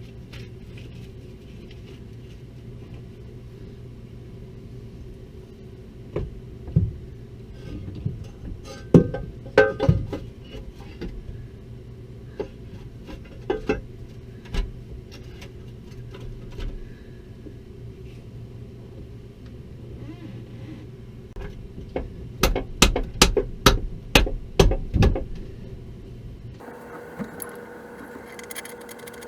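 Knocks and clunks as a bell housing is worked into place on the back of a marine diesel engine, with a quick run of about a dozen knocks a little over twenty seconds in, over a steady low hum.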